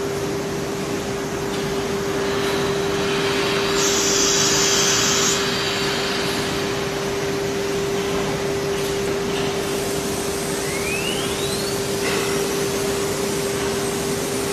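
ATC CNC wood router running a cut, its 9 kW air-cooled spindle giving a steady high tone over the rush of the dust extraction and vacuum system. A brief louder hiss comes about four seconds in, and a faint rising whine near the end.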